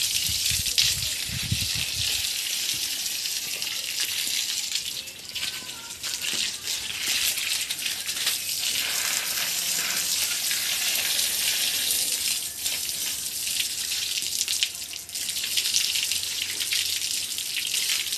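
A steady stream of water gushing and splashing over a Murrah buffalo's hide during its bath.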